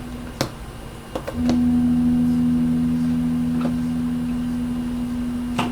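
A few sharp clicks, then about a second and a half in a household appliance switches on with a loud, steady electric hum that keeps running.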